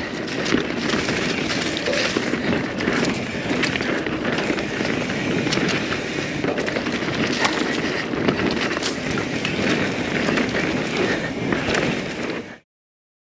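Norco Sight full-suspension mountain bike riding a dirt trail: continuous tyre and trail noise with a steady patter of sharp clicks and knocks from the bike rattling over the ground. The sound cuts off abruptly about twelve and a half seconds in.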